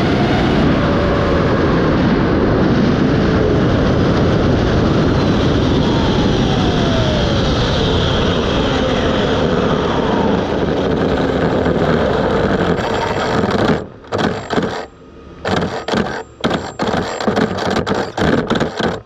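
Arrma Limitless RC speed-run car driving at high speed, heard from its onboard camera: a dense rush of wind and tyre noise with a motor whine that slides down in pitch. About 14 seconds in, the steady rush breaks into short, uneven bursts as the car loses power, because a motor wire has come unsoldered from the Hobbywing XLX2 speed controller's board.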